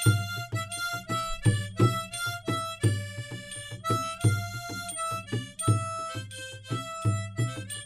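Background music: a melody of short pitched notes over a steady low beat of roughly two to three pulses a second.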